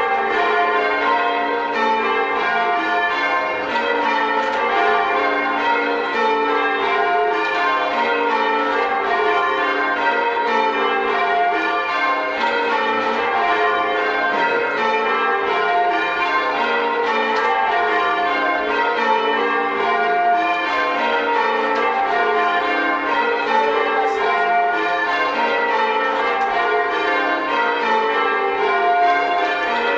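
A ring of six church bells with a 14 cwt tenor, rung full circle by a band. The bells sound one after another in repeating descending runs, with a boomy tenor.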